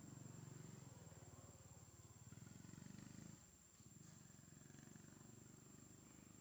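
Near silence: a faint low hum that dips briefly about three and a half seconds in, with a faint steady high-pitched whine.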